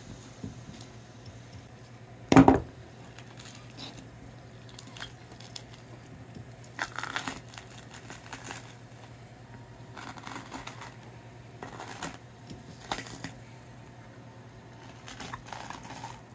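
Gar's hard, scaly skin being peeled back by hand from the meat, giving scattered short tearing and crinkling sounds, with one loud knock about two seconds in. A faint steady hum runs underneath.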